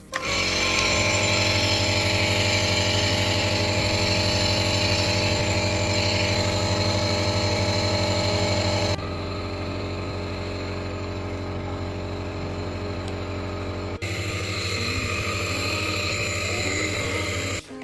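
Compressor nebulizer running: a steady motor hum with a hiss of air. It drops abruptly to a slightly quieter level about nine seconds in and comes back up about five seconds later.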